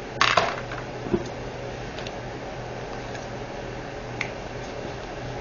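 Small plastic items being handled while sorting diamond painting drills: a short crackling rustle near the start, then a few faint clicks and ticks. A steady low hum runs underneath.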